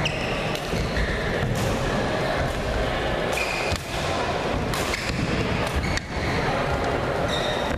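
Badminton rally: a string of sharp racket hits on the shuttlecock, a few seconds apart, with short high squeaks of court shoes on the floor between them, over a steady background noise of the hall.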